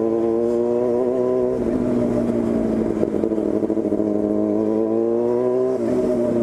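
Yamaha FZ6's 600 cc inline-four, breathing through an open 4-into-1 straight-through exhaust, running steadily under way. The note climbs slowly, then drops about six seconds in.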